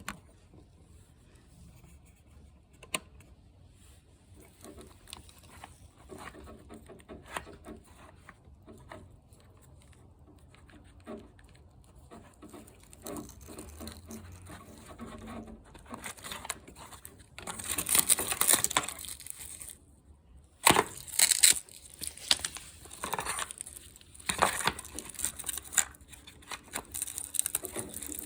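Handling noises: scattered small clicks and taps, then louder stretches of crinkling and rustling starting a little past halfway.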